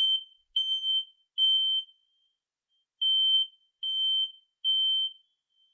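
Smoke detector sounding under test: a high-pitched alarm beep in the temporal-three pattern, three beeps, a short pause, then three more.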